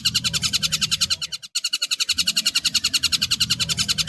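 Tengkek buto kingfisher calling in a rapid, harsh chatter of about a dozen notes a second. The chatter breaks off briefly about one and a half seconds in, then starts again.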